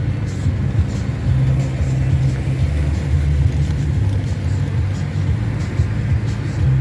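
Chevrolet Onix driving at steady cruise, a constant low road-and-engine rumble as heard inside the car, with music playing over it.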